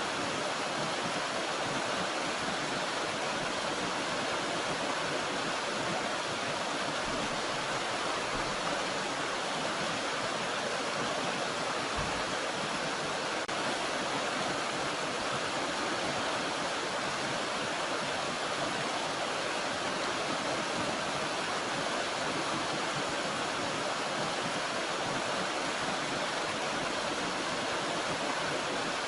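Water rushing steadily over a small waterfall on a mountain stream, an even, unbroken noise.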